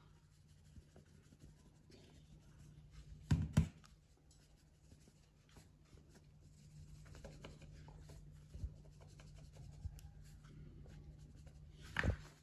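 Quiet kitchen handling sounds as garlic powder is shaken from a small container into a plastic bowl of flour: faint scratching and rustling, two quick knocks a little over three seconds in, and one more near the end, over a steady low hum.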